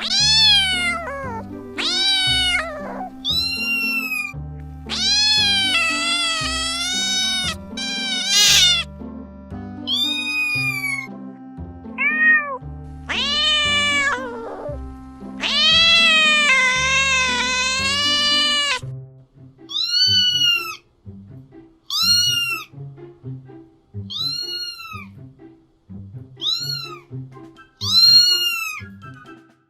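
Cats and kittens meowing over background music. Long, drawn-out meows come first, several overlapping. From about two-thirds of the way through come short, high-pitched meows, one every second or two.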